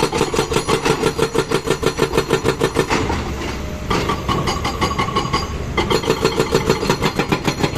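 Diesel engine of a JCB backhoe loader running with a fast, even chugging pulse. The sound changes abruptly about three and four seconds in, then the pulsing returns near six seconds.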